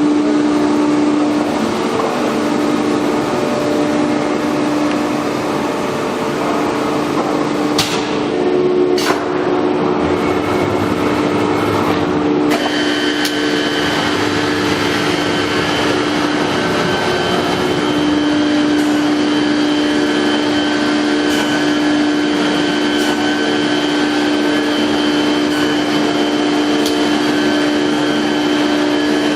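CNC router machinery running with a steady mechanical hum. Two sharp clicks come about eight and nine seconds in, and a higher steady whine joins about twelve seconds in and holds.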